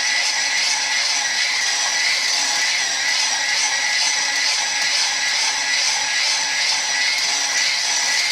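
Electric hand mixer with a whisk attachment running steadily at a constant speed, beating butter and sugar in a glass bowl.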